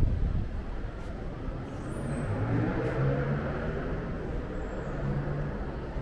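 A vehicle passing over a steady low urban rumble. A low hum and a rush of noise swell about two seconds in and fade again after about five seconds.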